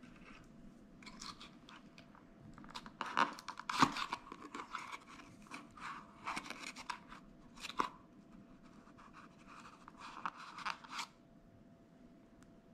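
Kitchen handling noise: irregular rustling and crinkling with sharp clicks, busiest from about three seconds in and dying away near the end.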